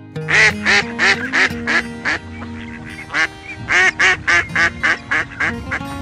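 Duck quacking in two rapid runs of short, loud quacks, about three a second, with a pause of about a second between runs, over background music with held notes.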